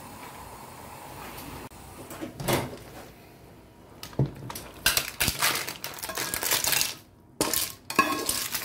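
Cooked clams in their shells sliding out of a pan into a ceramic serving dish, the shells clattering and clinking against each other and the dish. Before that, the clam broth simmering quietly in the pan.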